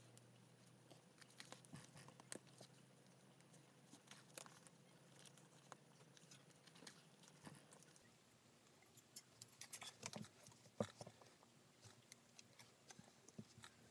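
Faint clicks, taps and rustles of hand saddle-stitching leather: needles pushed through the strap and waxed thread drawn tight, with a few sharper ticks near the end.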